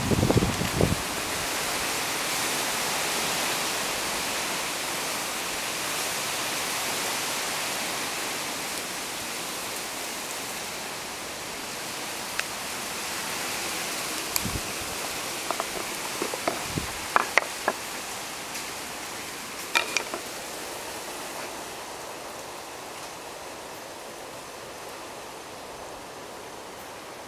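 Steady even hiss that slowly fades, with scattered light clicks and knocks about halfway through as a hand handles the hive's panel.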